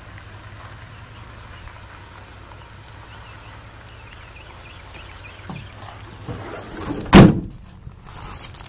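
Pickup tailgate on a 2007 Ford F-150 slammed shut: one loud metal bang about seven seconds in, with a short ring after it and a few lighter knocks. Under it is a faint steady outdoor background with a few faint high chirps.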